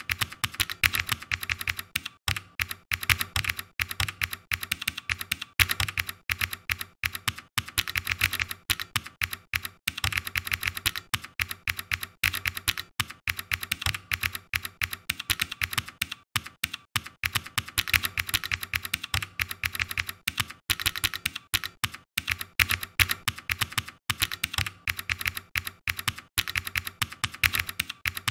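Typing on a computer keyboard: a fast, steady run of key clicks broken by brief pauses every few seconds.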